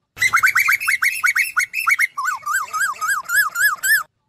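Asian koel calling: a fast run of short rising-then-falling notes, about seven a second, that drops lower in pitch and slows a little about halfway through.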